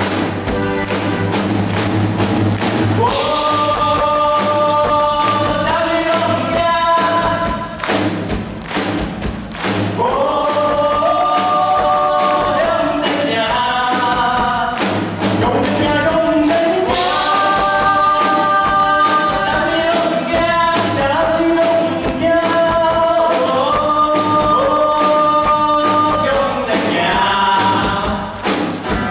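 Live pop-rock band playing through a PA: sung vocals in long held notes over a steady drum-kit beat, with guitar, bass and keyboard.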